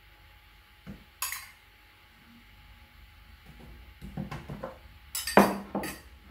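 A metal spoon clinking and scraping against a small ceramic bowl and a metal roasting tray as marinade is spooned out and stirred. There is one sharp clink about a second in, then a quicker run of clinks and scrapes over the last two seconds, loudest near the end.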